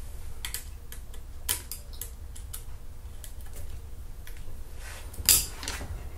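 Light metal clicks and taps as a tightening lever on a front rifle rest is loosened and repositioned with a hand tool, with a louder clack about five seconds in.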